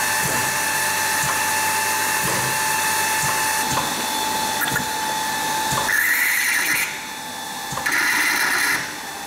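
VMI Trilab vacuum mixer homogenizer running with a steady high whine. About six seconds in the whine stops and two hisses of about a second each follow.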